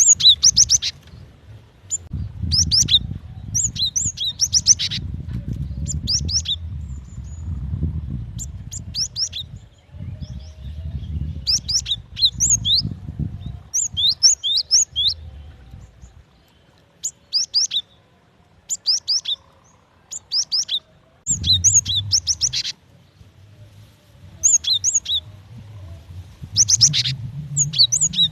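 Female cinereous tit calling: clusters of short, rapid, high chirping notes repeated again and again, the call a female gives to draw males. A low rumble of background noise runs under much of it.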